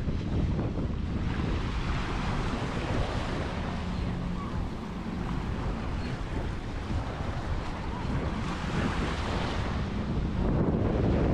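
Surf washing in on a sandy beach, steady, with wind buffeting the microphone.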